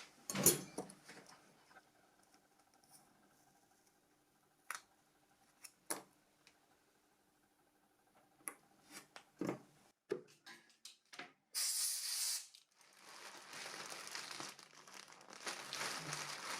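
Scattered small clicks and taps of phone parts being handled during repair work. Near the end come a brief tearing rip and then a steady crinkling rustle, like packaging or a parts bag being searched through.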